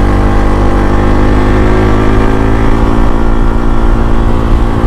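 Bajaj Pulsar NS200's single-cylinder engine running at steady revs under way, with a low wind rumble on the microphone.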